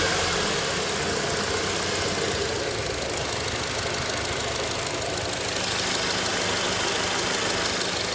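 Honda Accord's K20A6 2.0-litre four-cylinder engine running steadily, making the abnormal noise its owner calls a bad sound.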